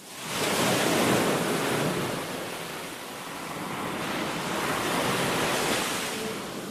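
Ocean surf washing against the shore, a steady rushing that fades in, swells twice and eases off near the end.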